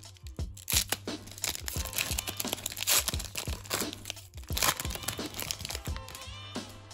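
A trading-card pack's plastic wrapper crinkling and tearing, with sharp clicks and snaps as the cards are handled and flipped through, over background music.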